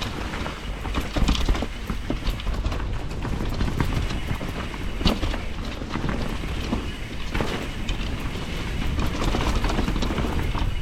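BCF enduro mountain bike clattering and rattling as it rides down a rough, wet trail, with a steady stream of knocks and clicks from chain and frame over roots and rocks and a low rumble underneath.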